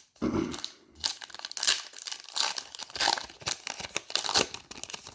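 Trading-card wax-pack wrapper being crinkled and torn open by hand, a dense run of crackling and ripping.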